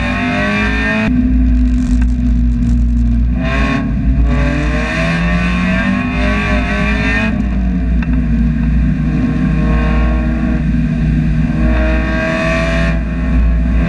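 Mazda Spec Miata's inline-four race engine heard from inside the cabin, driven hard on a wet track. It revs up and falls back, and its pitch drops sharply several times.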